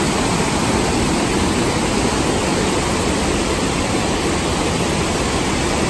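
Waterfall: a mountain creek cascading over boulders as white water, a steady rushing noise.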